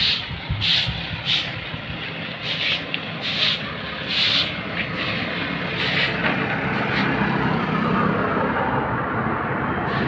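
A broom sweeping a concrete walkway in repeated short swishing strokes, about one a second or a little faster. In the second half a motor vehicle on the road draws closer, its steady engine and tyre noise growing louder under the strokes.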